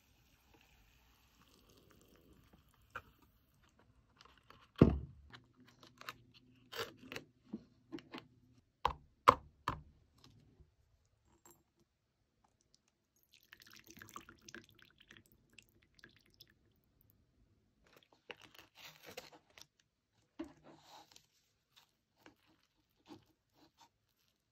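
Close-up eating and handling sounds of Mi Goreng cup noodles: a run of sharp knocks and clicks, the loudest about five seconds in, then a few short spells of soft chewing.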